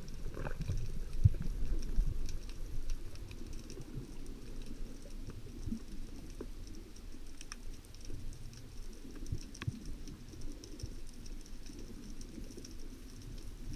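Underwater ambience: a low, uneven rumble with scattered faint clicks.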